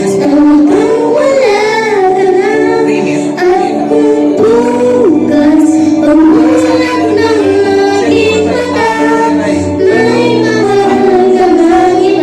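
A high voice singing a melody with long, wavering held notes over a backing track of sustained chords.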